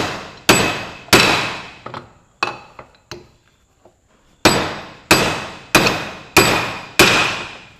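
Hammer driving new splined wheel studs into a Massey Ferguson 65 cast front wheel hub, with ringing metal-on-metal blows. There are two strong blows and a few lighter taps, a short pause, then five strong blows about two-thirds of a second apart.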